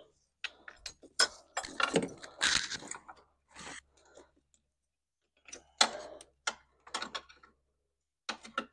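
Clinks, clicks and rattles of metal and plastic parts handled at a car battery as its hold-down strap and fittings are checked and fitted by hand, coming in bursts with a pause of about a second and a half in the middle.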